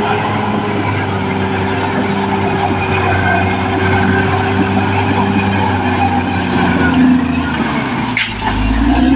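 Caterpillar D6R XL bulldozer's diesel engine running steadily under load, with a sharp click and a deep low surge about eight seconds in.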